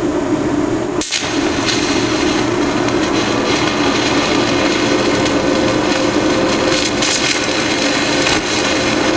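TIG welding arc striking about a second in and then running as a steady hiss while tack welding a broken semi-steel casting with nickel-iron filler rod, over a steady low hum.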